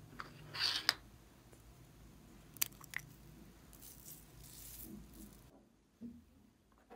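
Pink glitter shaken out of a small plastic shaker bottle onto slime. A loud rattle comes about half a second in, then two sharp clicks about three seconds in, then a soft hiss of falling glitter.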